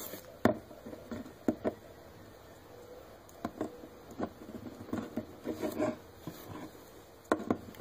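Hands handling a plastic action figure on a wooden tabletop: scattered light taps and clicks as it is gripped, adjusted and set down.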